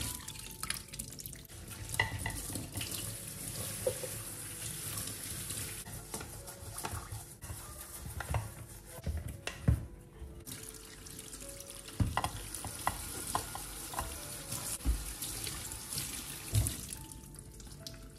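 Tap water running into a kitchen sink while spice bottles and their lids are rinsed by hand, with knocks and clinks of the bottles against the sink. The water stops briefly about halfway through, then runs again.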